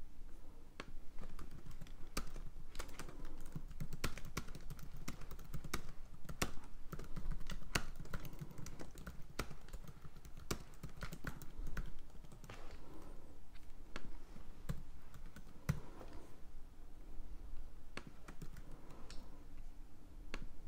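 Typing on a computer keyboard: quick, irregular key clicks in runs with short pauses between them.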